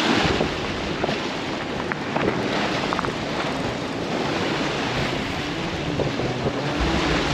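Surf washing against jetty rocks, with wind buffeting the microphone: a steady rushing noise.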